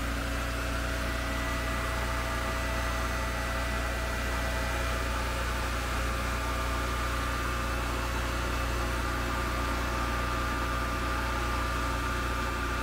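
Westerbeke 7.2 kW carbureted gasoline marine generator running steadily at its constant 3,600 rpm, with no electrical load on it yet, heard through the open engine hatch.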